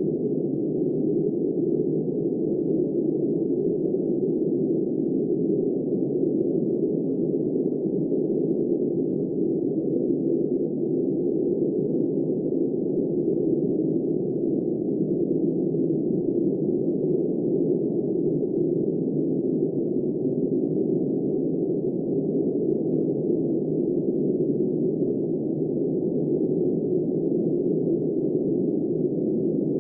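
Steady, low rushing wind noise, even throughout with no gusts and no high hiss.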